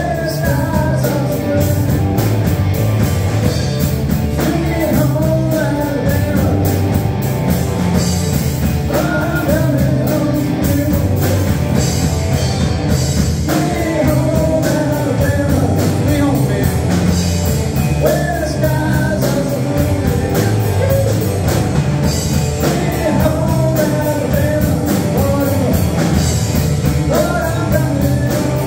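Live rock band playing: a male singer sings phrases over two electric guitars, electric bass and a drum kit.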